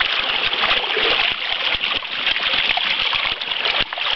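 Shallow stream water rushing and splashing steadily around and over the rim of a plastic tub being emptied of brown trout into the current.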